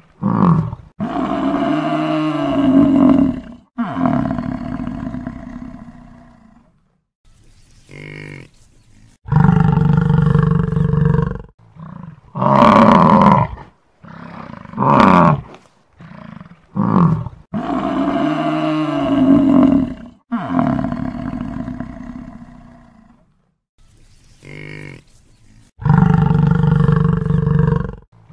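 Buffalo bellowing: a run of loud, drawn-out calls, each one to three seconds long, with short gaps and a few shorter grunting calls between.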